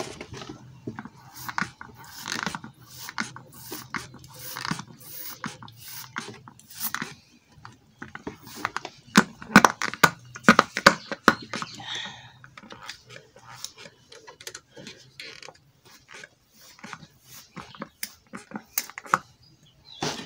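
Hands working dry, crumbly larvae feed in a plastic basin and handling a plastic sanitizer bottle used to moisten it: irregular clicks and rustles, densest and loudest about nine to eleven seconds in.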